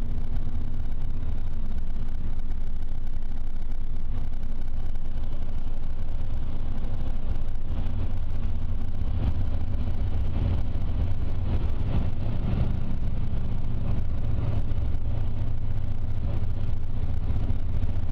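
Road and engine noise of a moving car: a steady low drone with a hum, and faint irregular ticking through the middle.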